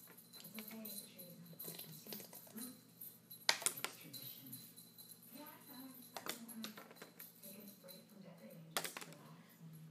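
A paintbrush being flipped at a small bottle, clattering against the bottle and tabletop: three sharp clacks about two and a half seconds apart, with a few lighter taps near the start.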